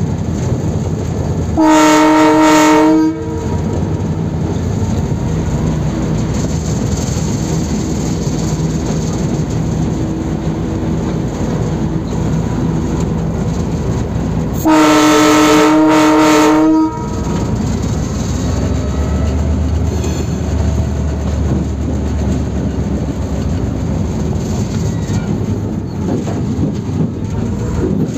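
Diesel locomotive's horn sounding two long blasts, the first about a second and a half long near the start and the second about two seconds long some twelve seconds later, over the steady running of the engine and the wheels on the rails.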